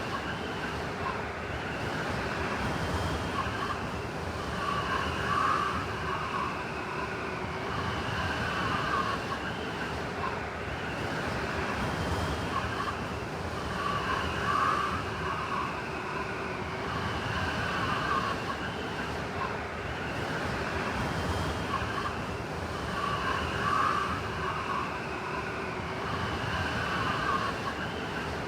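Blizzard wind howling: a steady rushing noise with a whistling tone that swells in gusts every few seconds.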